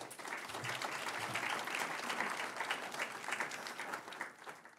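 Audience applauding a speaker, dying away near the end.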